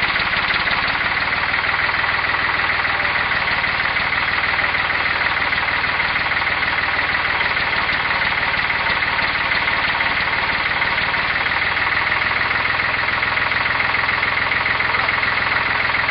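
Farm tractor engine running steadily at a constant speed while it holds a lift.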